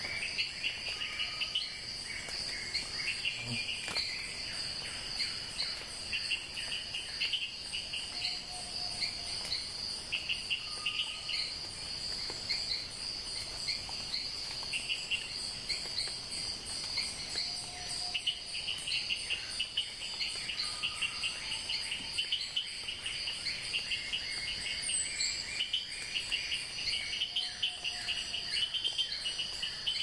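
Outdoor insect chorus: a steady high-pitched trill with bursts of chirping over it, and a short, soft whistled call that comes back every nine or ten seconds.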